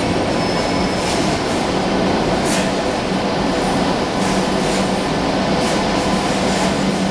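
Deutsche Bahn Intercity passenger coaches rolling past as the train pulls out: a steady rumble of wheels on rail with a low hum and scattered sharp clicks from the wheels, plus a brief faint squeal early on.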